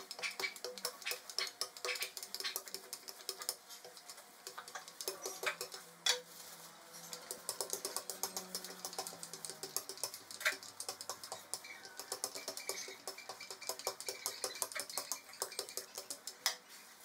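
Plastic sheet crinkling and crackling under a metal rolling pin as dough is rolled out beneath it: a dense run of irregular clicks.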